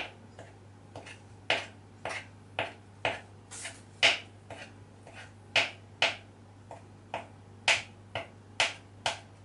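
Kitchen knife slicing cold butter into pieces over flour, its blade knocking sharply on the wooden board about twice a second.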